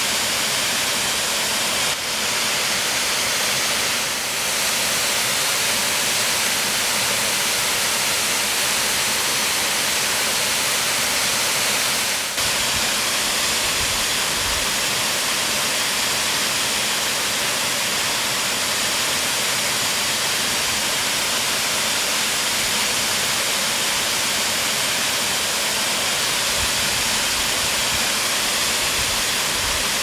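The Falls of Foyers, a tall narrow waterfall, rushing steadily as an even hiss of falling water.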